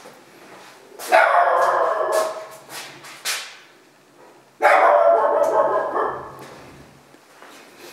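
A dog barking in two bouts of about two seconds each, one starting about a second in and the other near the middle.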